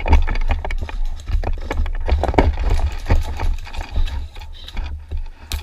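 Irregular knocks and thuds, a few a second, over a steady low rumble.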